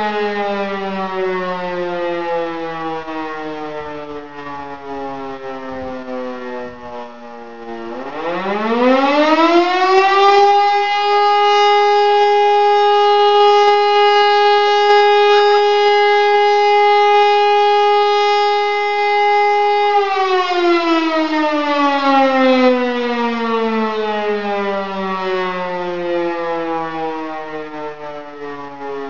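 E57 electric motor siren sounding one tone of the fire-alarm signal. It is winding down at first, spins up again about eight seconds in to a steady tone held for about ten seconds, then winds down slowly.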